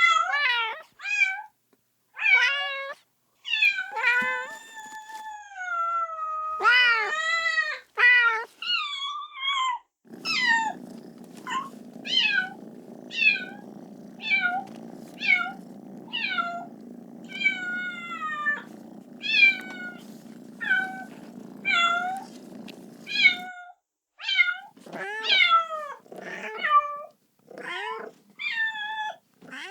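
Kitten meowing over and over, short high cries falling in pitch about once a second, with a few longer drawn-out meows near the start: a kitten crying for its mother. From about ten seconds in until a few seconds before the end, a steady low rumbling noise runs under the meows.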